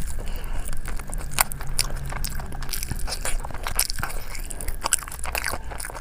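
Close-miked eating: a person biting and chewing spicy food, with irregular crunches and mouth clicks.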